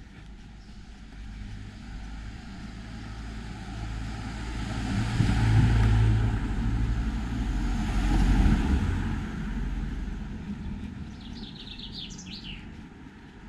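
A motor vehicle passing by: its engine hum and tyre noise build up, are loudest about halfway through, then fade away. A small bird chirps briefly near the end.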